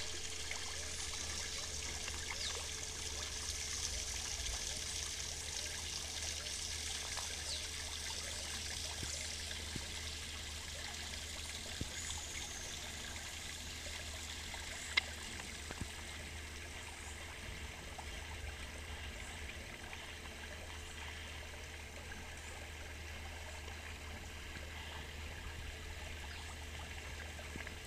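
Water trickling steadily, with a few faint clicks about halfway through.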